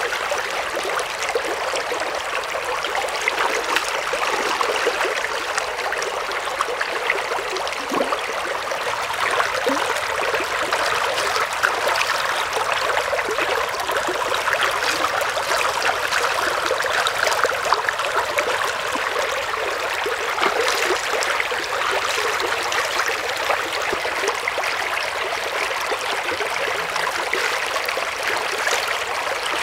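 Shallow stream running steadily, a continuous babbling trickle of water flecked with many small splashes.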